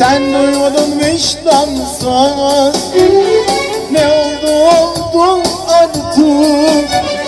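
Live Thracian folk dance music: an ornamented, wavering melody line over a steady beat.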